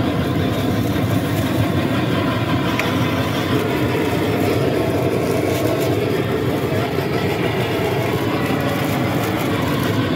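A handheld gas blowtorch burning steadily as it is played over cheese slices to melt them, within a steady background noise.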